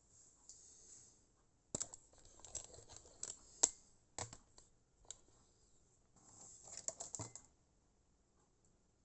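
Light clicks and taps of small hard objects being handled on a workbench, with a run of them from about two seconds in, the loudest a little after three and a half seconds, and a second cluster of clicks and rustling near the end.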